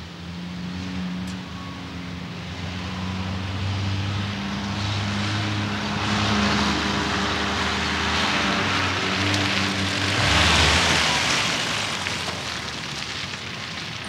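Engine of a vintage Mercedes-Benz convertible running as the car drives up and passes close by, growing louder to a peak about ten seconds in with a rush of tyre and wind noise, then fading as it moves away.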